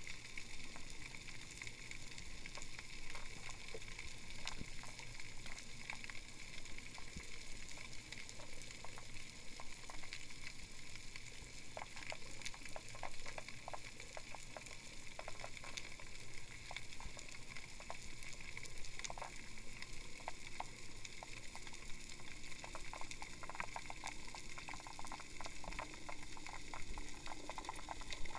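Underwater crackle: a steady fizzing hiss with a dense scatter of sharp clicks, growing busier about halfway through, as picked up by an action camera underwater.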